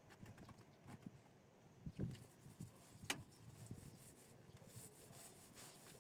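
Near silence with faint scraping and a few light knocks, about two and three seconds in.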